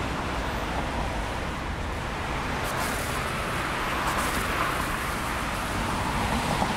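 Road traffic on a wet road after rain: a steady hiss of tyres on wet asphalt as cars pass, with one pass swelling louder about four seconds in.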